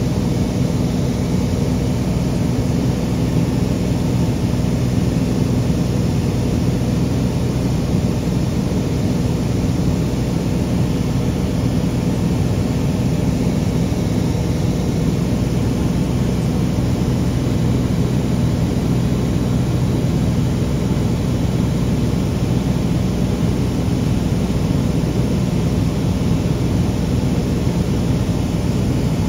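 Small aircraft's engine running steadily, heard from aboard: an even low hum with a few steady tones over rushing noise.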